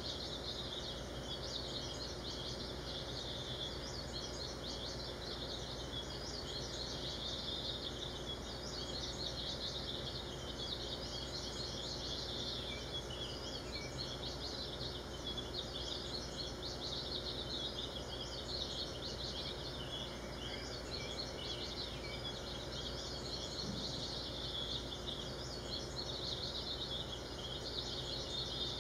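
A dense, steady chorus of small high-pitched chirps from many animals at once, over a low steady hum.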